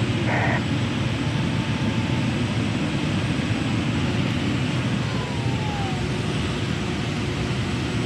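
Steady rush of air streaming over a glider's canopy in the cockpit in flight, with a faint falling tone a little past halfway.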